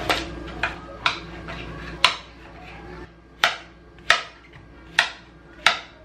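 Kitchen knife chopping zucchini straight on a granite countertop: about eight sharp chops at an uneven pace, each blade strike clacking on the stone.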